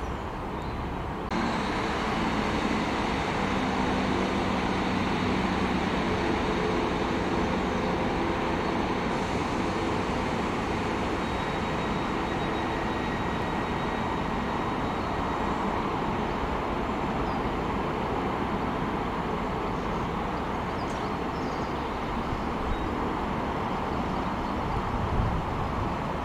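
Class 150 Sprinter diesel multiple units' underfloor diesel engines running. About a second in, one unit's engines open up as it pulls away, with a pitched engine note for several seconds, over the steady running of the unit still standing.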